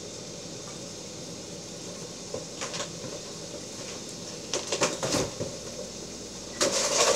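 Wine and pan-juice sauce simmering in a stainless steel skillet on the stove: a steady low hiss, with a few short louder bursts of bubbling noise, the loudest near the end.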